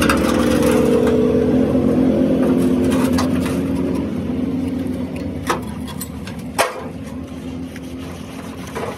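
An engine running steadily nearby, slowly fading over the second half, with two sharp knocks about five and a half and six and a half seconds in.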